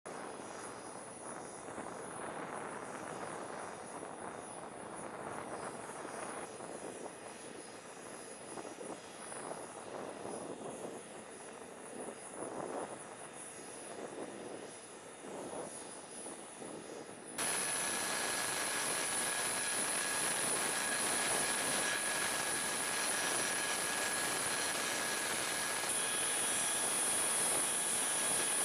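Jet engine noise: a steady hiss with a thin high whine, which jumps abruptly louder about two-thirds of the way through, where several steady high-pitched turbine whines come in.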